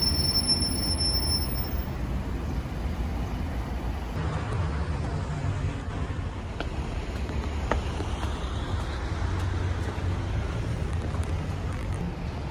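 Street traffic ambience: a steady low rumble of road vehicles, with a couple of faint ticks.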